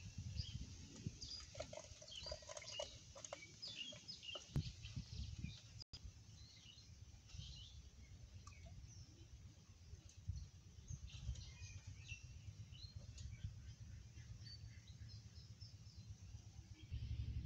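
Small birds chirping and calling irregularly over a low, steady background rumble, faint overall. The chirps are thickest in the first few seconds and again past the middle, and the sound drops out for an instant about six seconds in.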